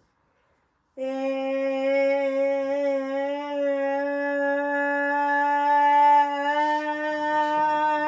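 A steady, loud hum held at one pitch, starting abruptly after a second of dead silence and stepping up slightly in pitch about six seconds in.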